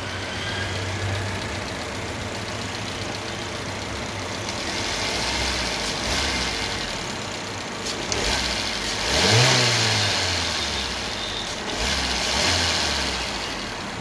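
Maruti Eeco's four-cylinder engine idling steadily. It is revved up once about nine seconds in and settles back, with a smaller rise near the end. It runs without misfiring now that carbon has been cleaned from the ignition coils and spark plugs.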